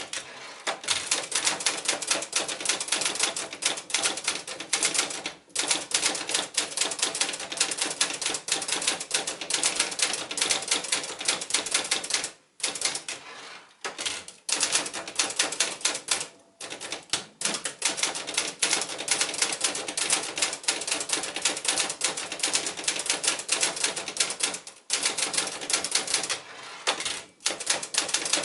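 Sears Manual 2 (Brother JP-5) manual portable typewriter being typed on: a fast, steady run of key and typebar strikes, broken by a few short pauses.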